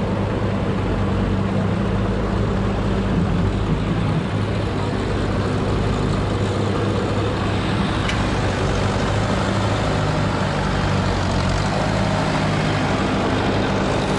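Engine of old heavy earthmoving equipment idling steadily, an even low running note with no revving.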